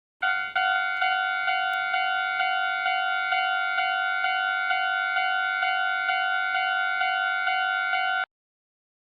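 Japanese railroad crossing warning bell ringing its repeated "kan-kan" tone, about two strikes a second. It starts just after the opening and cuts off suddenly about eight seconds in.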